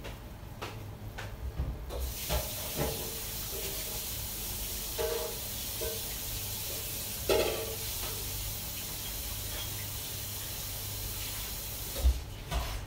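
Kitchen tap running with a steady hiss while hands are washed under it. The hiss comes on about two seconds in and stops abruptly near the end, with a few clinks and a knock near where it stops.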